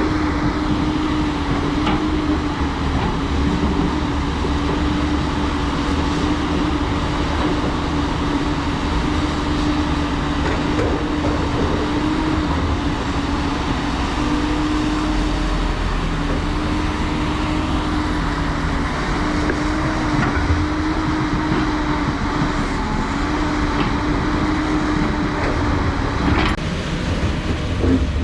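Diesel engine of heavy earthmoving machinery running steadily, its engine note wavering slightly in pitch over continuous mechanical noise, with one sharp knock near the end.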